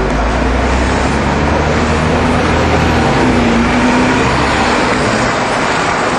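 Busy city street traffic: engines and tyres of cars and buses running past, with a heavy low rumble through the first half that then fades back into the general noise.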